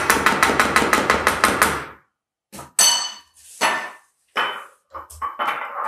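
Hand-mixer beaters knocked rapidly against the side of a ceramic mixing bowl of batter, about six knocks a second for two seconds. Then a few separate clinks and knocks, one of them ringing.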